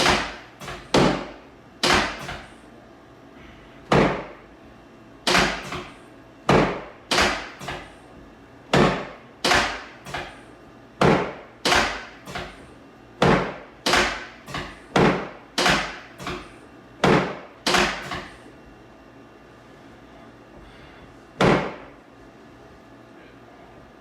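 A rapid series of sharp, loud knocks from a chiropractic adjustment, about one a second with some in quick pairs, stopping about 18 seconds in and followed by one last knock after a pause.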